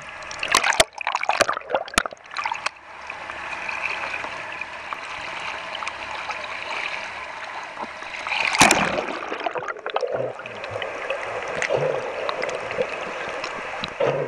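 Sea water heard through a camera moving underwater and at the surface: steady rushing and gurgling, with sharp knocks and splashes in the first few seconds and a loud splash about eight and a half seconds in.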